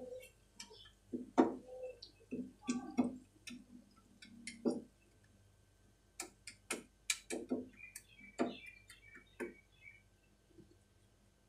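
Wooden spatula knocking and scraping against a non-stick frying pan while stirring shredded cabbage: a string of irregular light clicks and knocks that stops near the end.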